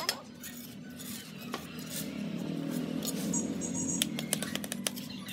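Steel bricklaying trowel scraping mortar and knocking on bricks, with several sharp clinks of brick and metal.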